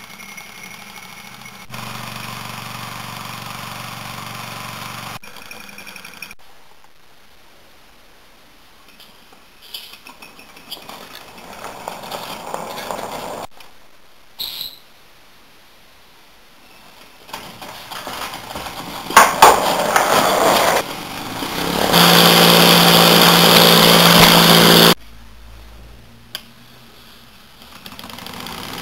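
Wilesco D430 toy steam traction engine running, heard in several short clips cut together, with jumps in level between them. The loudest part is a steady rushing noise with a low hum underneath that lasts about three seconds near the end.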